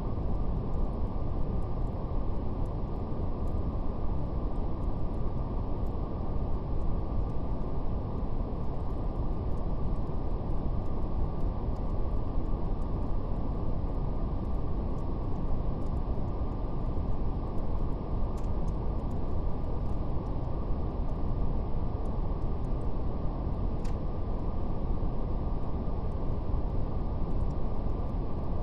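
Steady, soft brown noise: a deep, even rush with no treble, and a faint crackle of a fire ticking over it.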